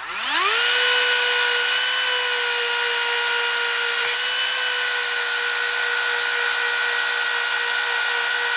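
Dremel rotary tool spinning up with a rising whine, then running at a steady high pitch as its felt polishing wheel buffs a rust-ground metal spoon lure, with a brief tick about four seconds in.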